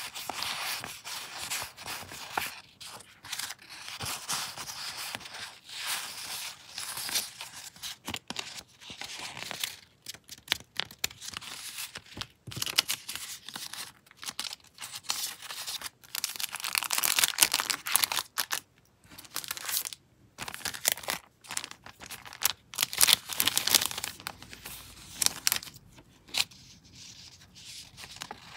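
Small paper tickets handled in stacks: crisp rustling and crinkling as they are shuffled and leafed through by hand, in irregular bursts with sharp snaps of paper.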